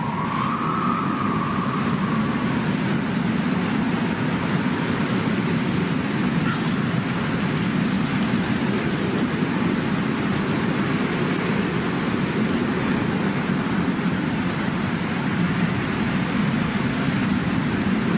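Steady low rumbling noise at an even level, with a faint thin tone that rises slightly over the first two seconds.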